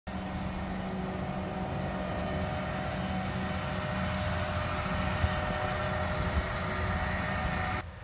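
A John Deere combine's diesel engine running steadily as the machine drives by with its corn head on, a continuous hum with a few held tones. It cuts off suddenly near the end.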